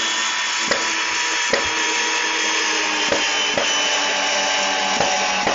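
Cordless drill/driver running steadily, driving a long wood screw into a pine 2x4, with a few light clicks; the motor stops at the end.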